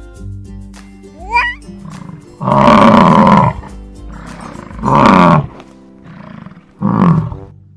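Buffalo bellowing three times, deep rough calls, the first about a second long and the next two shorter, over background music.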